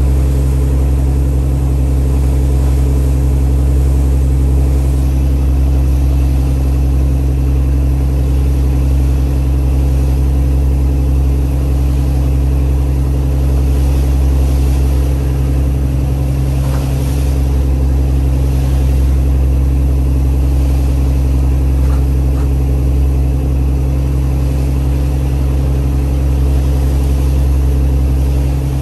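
A boat's engine running steadily under way, an even, loud low drone with no change in speed.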